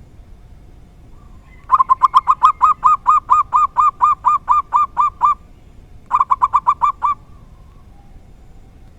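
Zebra dove (perkutut) cooing in rapid, evenly repeated notes. The first run starts about a second and a half in, packed tightly at first and then settling to about five notes a second for some three and a half seconds. A shorter run of about seven quick notes follows.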